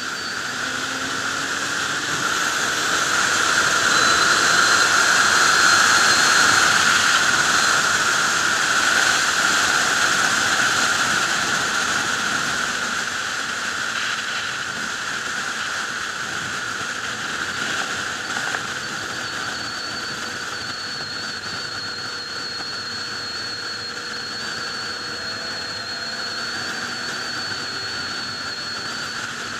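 Wind rushing over the microphone of a motorcycle riding at highway speed, swelling over the first several seconds and then easing off, with a thin steady high whistle at times. The engine is barely heard under the wind.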